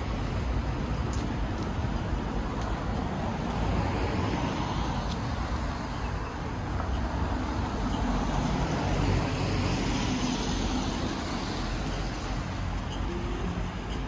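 Street ambience on a windy night: wind buffeting the microphone in a low, unsteady rumble over a steady rush of road traffic, swelling for a few seconds around the middle.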